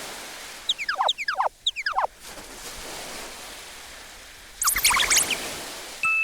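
Cartoon sound effects over a steady, water-like hiss: three quick falling swoops about a second in, then a brief sparkly flurry of high notes about five seconds in, and a ding starting just at the end.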